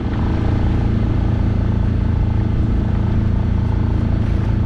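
Small sailing boat's engine running steadily, pushing the boat along under power before the sails are up.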